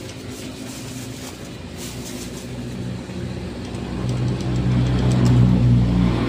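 A motor vehicle's engine running, growing louder over the second half, with light rustling and small clicks before it.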